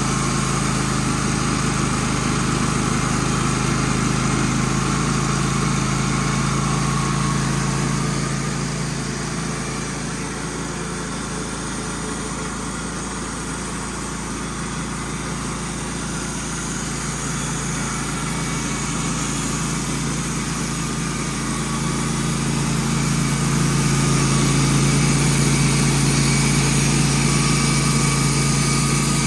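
Wood-Mizer band sawmill running with its engine holding a steady note. It drops a little in level for a stretch in the middle and comes back louder near the end.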